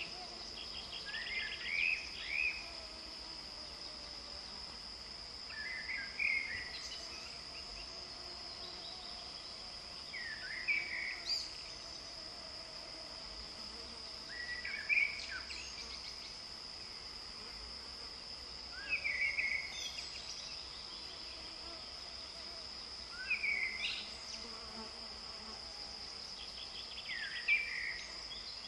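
A steady, high-pitched insect chorus runs throughout, while a songbird sings short whistled phrases about every four seconds; the bird phrases are the loudest sounds.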